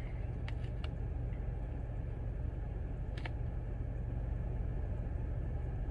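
A steady low hum in the background, like an idling engine, with a few faint clicks.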